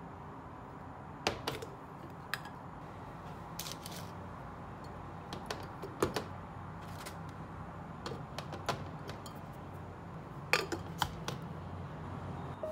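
Scattered light clicks and knocks of small objects being handled, over a low steady hum; the sharpest taps come about a second in, around the middle and near the end.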